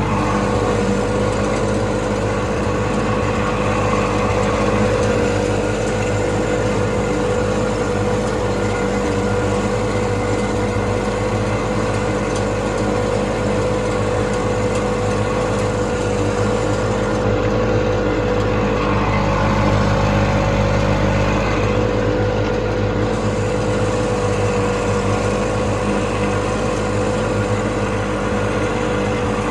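Wheel Horse 520H garden tractor running steadily at working speed with its mower deck cutting tall grass. Past the middle the engine note wavers and deepens for a few seconds as the load changes.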